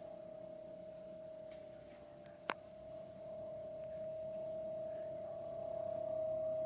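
Samsung RT35FEAJDSL inverter frost-free refrigerator making a steady, high-pitched whining tone. The tone grows louder from about halfway through, with one sharp click just before. It is the irritating noise the owner can't tell is normal or a fault.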